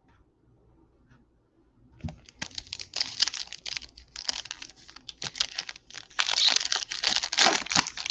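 A Topps baseball card pack's wrapper being torn open and crinkled by hand. It starts about two seconds in as a run of sharp crackles, getting denser and louder near the end.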